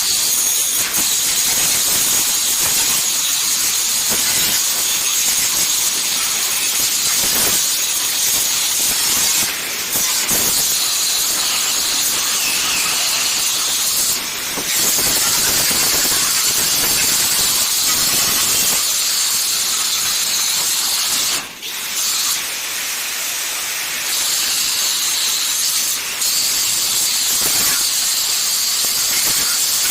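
Angle grinder grinding a fancy steel gate, a steady high-pitched whine over a hiss of metal. The grinding lets up briefly about ten, fourteen and twenty-one seconds in.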